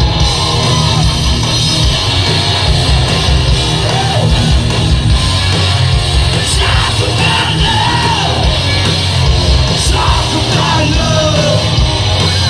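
Live hard rock band playing loudly: distorted electric guitar through a Marshall amp, bass and drums, with several high sliding notes over the top in the middle of the stretch.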